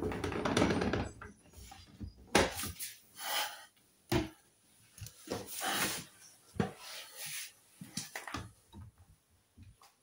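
Irregular knocks, clunks and rustles of household items and laundry being handled while a front-loading washing machine is loaded, with a denser rustling stretch in the first second.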